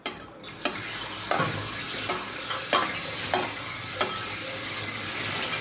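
A spatula stirs hot lemon pickle in a metal pan, scraping and knocking the pan about every two-thirds of a second over a steady sizzling hiss from the hot syrupy masala.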